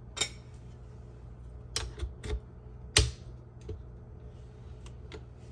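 A string of short, sharp clicks and knocks, about eight in all and the loudest about three seconds in: the plastic and metal parts of a KitchenAid Spiralizer Plus attachment being handled while the large coring blade is fitted.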